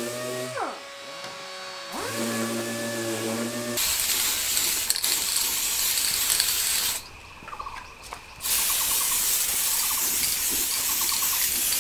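An electric power sander runs, winds down under a second in and spins back up. About four seconds in it gives way to the loud, even hiss of an aerosol spray-paint can, which stops for a second or so near the middle and starts again, with short bursts of rattling ticks from the can.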